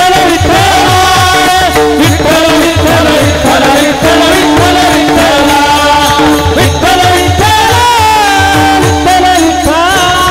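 Varkari kirtan music: singing voices over steady held drone tones, with regular deep hand-drum strokes and the rhythmic clash of small brass hand cymbals (taal).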